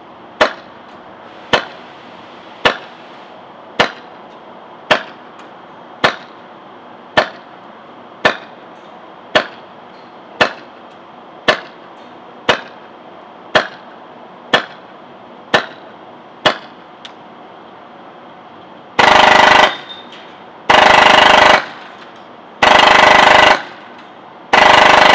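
HPA airsoft gun with a Protech MK2.5 drop-in engine firing about sixteen single semi-auto shots, roughly one a second. Near the end come four short full-auto bursts about two seconds apart, at a rate of fire near 1,500 rounds per minute.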